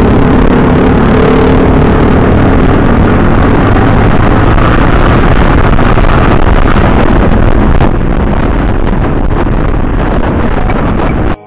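Yamaha sport motorcycle riding at road speed, with loud rushing wind on the bike-mounted microphone over the engine. The sound eases slightly near the end, then cuts off suddenly.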